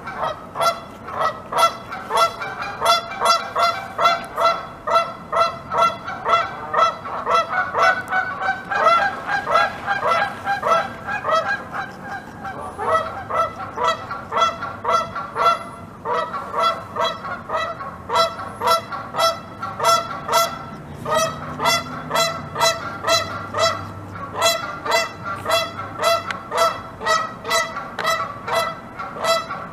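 North American beaver gnawing on a peeled log: a steady rhythm of about two squeaky, crunching bites a second, broken by a couple of short pauses.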